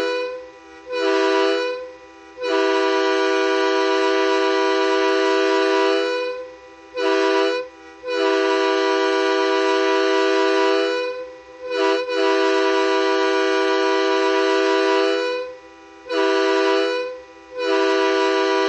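Train-style air horn on a semi truck sounding a chord of several steady tones in a series of blasts: long ones of three to four seconds alternating with short toots under a second, each cut off cleanly.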